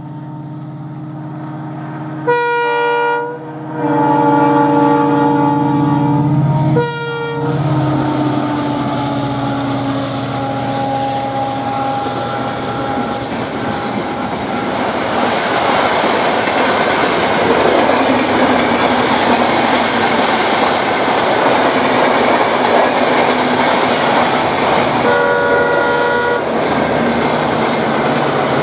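WDP4D diesel locomotive with its engine running sounds its horn: a short blast about two seconds in, a long one, then another short one. The locomotive passes with a slight drop in pitch, followed by the rumble and clickety-clack of the coaches rolling by. The horn sounds briefly again near the end.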